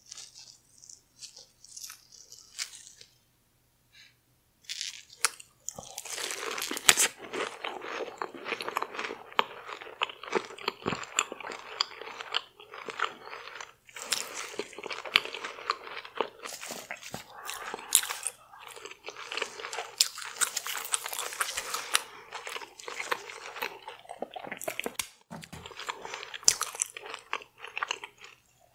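Close-miked eating: biting and chewing of sauce-coated seafood-boil food with a crunchy deep-fried coating. A few faint mouth clicks open it, and then dense, continuous crunching and wet chewing start about six seconds in.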